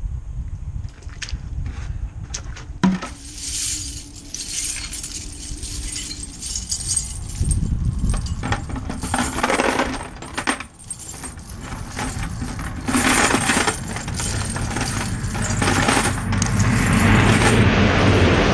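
Steel tire chains clinking and rattling link on link as they are lowered into a plastic bucket. There are a few sharp clicks and a loud clank about three seconds in, then irregular clattering that swells into a long run of rattling near the end.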